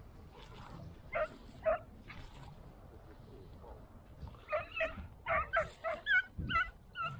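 Segugio italiano hounds giving tongue on a hare's trail, in short high yelps: two about a second in, then a quicker run of calls, about two a second, through the second half.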